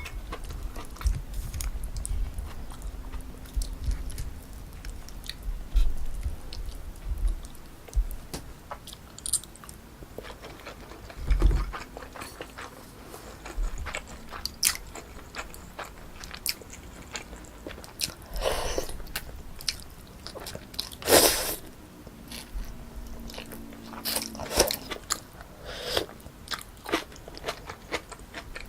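Close-miked mouth sounds of eating pork kimchi stew with rice: steady chewing with crunching and small wet clicks. Partway through come a few louder, longer noisy sounds.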